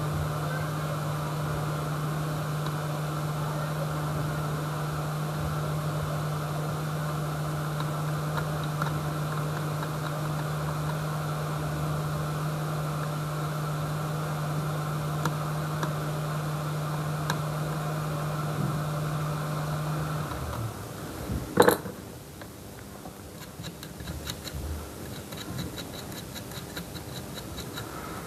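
A small electric motor or blower runs with a steady hum and stops about twenty seconds in. A sharp click follows about a second later, then a few faint ticks.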